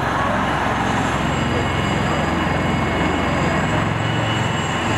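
AgustaWestland AW159 Wildcat helicopter running on the ground during start-up: a steady whine from its twin turboshaft engines over a fast, even pulsing from the turning rotor blades.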